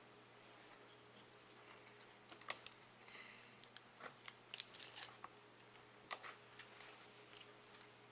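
Near silence over a faint steady hum, with a few faint scattered clicks and crinkles from a foil-wrapped wafer snack being handled.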